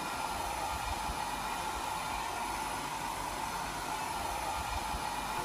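Handheld hair dryer running steadily: a constant rush of air with a steady whine.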